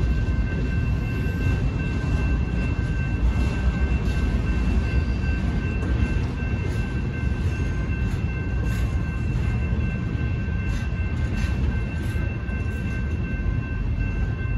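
Freight cars of a BNSF manifest train rolling past a grade crossing: a steady heavy rumble of wheels on rail with scattered clacks, and a faint steady high-pitched ringing tone above it.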